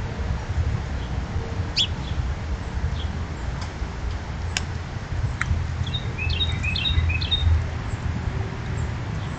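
Wild birds chirping: scattered single chirps, then a quick run of short chirps about six seconds in, over a steady low rumble.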